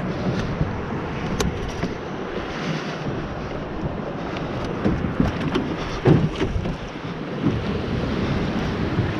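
Small boat under way on choppy water: wind buffeting the microphone and water splashing against the hull, with several louder slaps between about five and six and a half seconds in.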